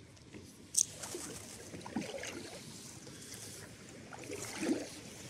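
Sit-on-top kayak paddled on the sea: the paddle blades dip and splash in the water, with a sharp knock about a second in.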